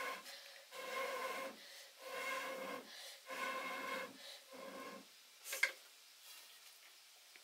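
Blowing through a metal blowpipe into a wood fire to fan the flames: a run of long blows about a second each, every rush carrying a hollow whistling tone from the pipe. The blowing stops about five seconds in, followed by a single sharp tap.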